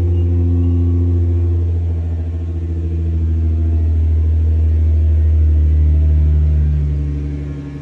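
Nissan GT-R R35's twin-turbo 3.8-litre V6 idling after a cold start: a steady, deep idle whose level sags briefly twice.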